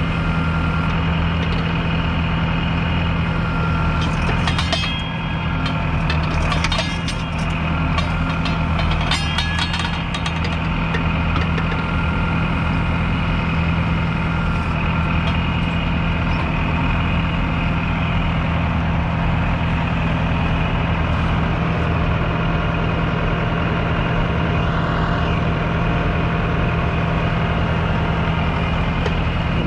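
1983 Fendt Farmer 309 LS tractor's 4.2-litre four-cylinder diesel running steadily under load while pulling a two-furrow Kverneland mounted plough through the soil. Bursts of rattling come between about four and ten seconds in.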